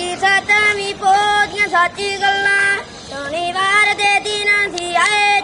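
A boy singing unaccompanied in a high voice, holding long, wavering notes: a Punjabi Sikh devotional verse.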